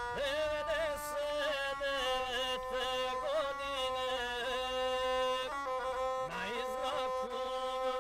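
Background music: a slow melody of long held notes with small ornamental turns.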